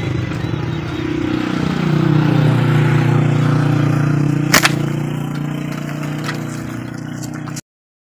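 A motor vehicle's engine going past: a low hum that swells for a couple of seconds, drops slightly in pitch, then fades away. A single sharp click comes about four and a half seconds in, and the sound cuts off suddenly near the end.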